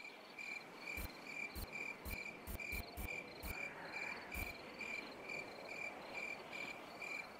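Crickets chirping steadily at about two chirps a second, with a scattering of sharp clicks in the first half.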